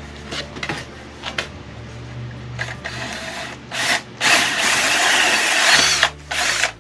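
Power drill driving a dull hole saw, with clicks and knocks at first and then running loud in two spells over the last three seconds, with a whine that bends in pitch.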